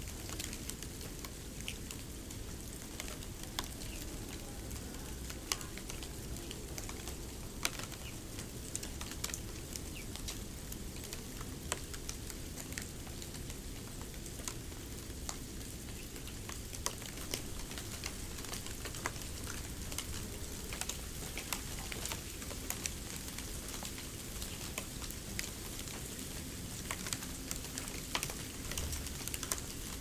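Snow sounds: a steady soft hiss with many scattered light crackles and ticks, even throughout.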